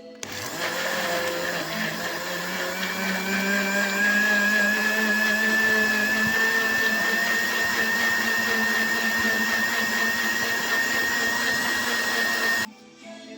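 Electric kitchen blender running, blending fruit with water and honey; its motor whine rises in pitch over the first few seconds as it comes up to speed, then holds steady. The motor cuts off suddenly near the end.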